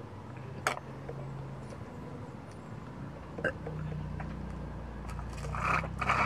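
Chocolate milk being sucked through a straw from a small drink carton: mouth clicks or gulps about a second in and again midway, then a noisy slurp near the end.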